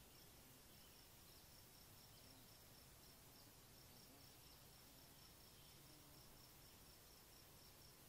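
Near silence: faint outdoor quiet with a steady, faint high-pitched insect chirping, about four pulses a second.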